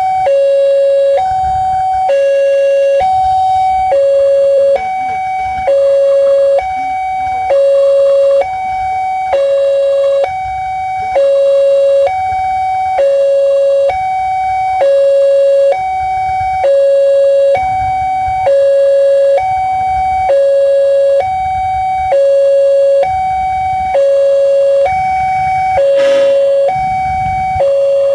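Railway level-crossing warning alarm sounding while the barrier is down: two tones, a lower and a higher, alternating evenly about every half second without a break, warning of an approaching train. A short noisy burst cuts in briefly near the end.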